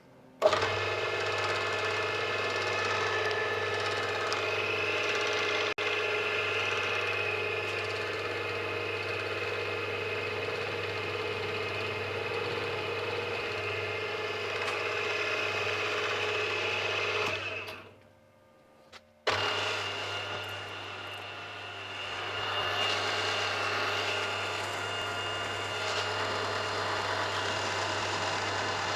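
Electric drill motor running steadily while drilling a hole, likely the set-screw hole; it is switched off about 17 seconds in and started again about two seconds later, briefly dropping in level soon after restarting.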